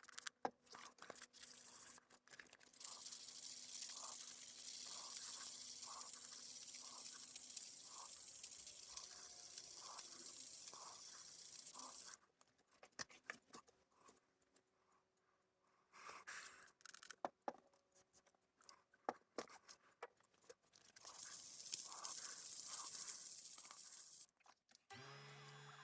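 An abrasive is rubbed back and forth against the flank of a steel kitchen-knife blade to give it a hazy satin finish, making a faint, hissy scraping in two stretches. A few light clicks and knocks fall between them.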